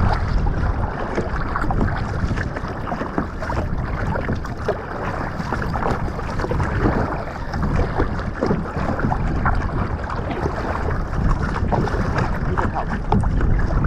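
Wind buffeting the microphone over water lapping and splashing against a kayak's hull, with scattered small knocks and ticks.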